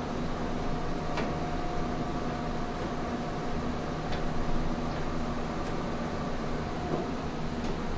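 Steady mechanical hum of a Varian Clinac 6EX radiotherapy linear accelerator as its gantry swings round, with a few faint ticks scattered through.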